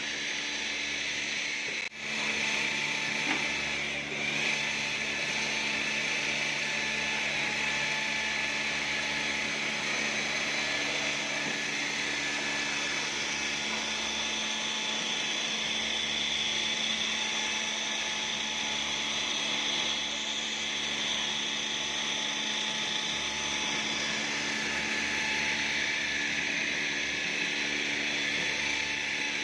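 Steady whirr of a running motor with a constant low hum, briefly dipping about two seconds in.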